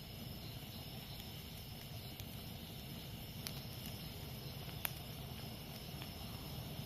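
Campfire crackling with a few sharp pops, the loudest about five seconds in, over a steady hiss. Jungle insects keep up a steady high-pitched buzzing throughout.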